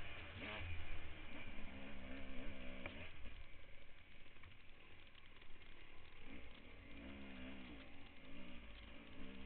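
Off-road dirt bike engine being ridden, its revs rising and falling over and over with throttle and gear changes, over a steady rush of wind noise.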